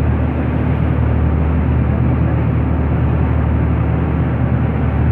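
A boat's engine running at a steady cruising drone, a low even hum with a steady rush of noise over it, with the boat under way.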